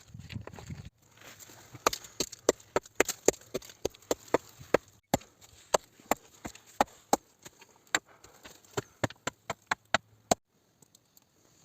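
Dry wood cracking and snapping: an irregular run of short, sharp cracks, several a second, that stops abruptly shortly before the end.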